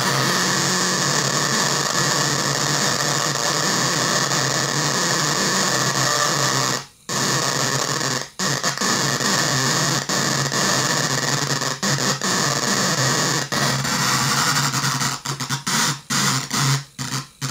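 A 20-watt loudspeaker switched on and off by an electromagnetic relay whose coil is fed music from a phone, with a 9-volt battery as the power, turns the beat into a noisy, buzzing cacophony. It drops out briefly about 7 seconds in, and near the end it breaks up into short choppy bursts before cutting out.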